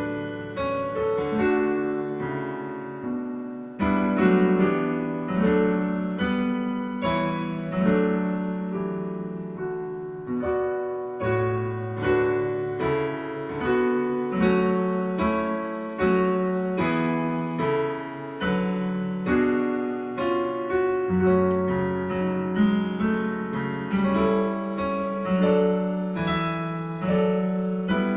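A hymn played on a digital piano in full chords, new chords struck about every half second to a second at a steady, unhurried tempo.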